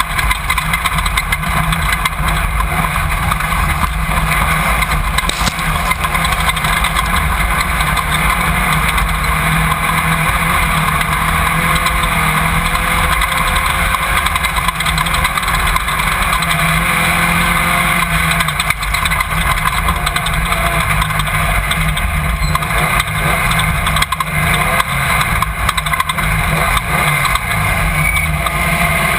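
Off-road race car engine running at speed, heard loud and steady from a camera mounted inside the car, under a constant haze of wind and drivetrain noise; the engine pitch shifts a little as the throttle changes.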